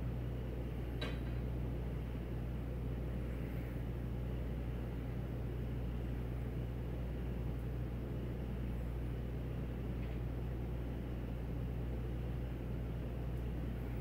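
Steady low hum with a hiss over it: the constant background noise of the room, with a faint tick about a second in.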